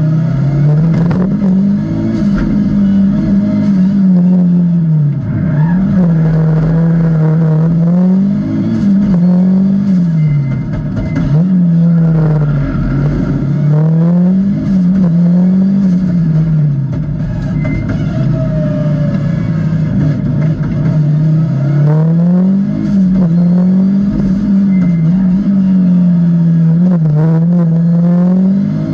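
Audi Quattro A2 rally car's turbocharged inline five-cylinder engine, heard from inside the cockpit, its revs climbing and dropping again and again as the car accelerates and slows on the stage.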